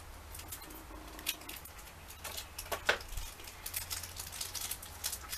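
Scissors snipping a small cardboard blind box and the packaging being opened by hand: a scatter of light clicks and crinkles, with one sharper click about three seconds in.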